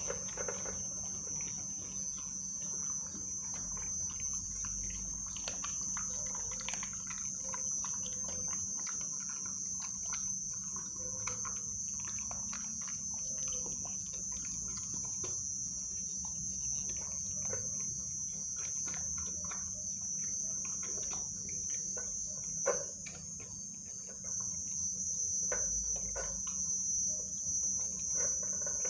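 Young American Pit Bull eating raw food from a steel bowl: irregular wet chewing and licking clicks, with one louder knock about three quarters of the way through. A steady high-pitched trill runs behind it throughout.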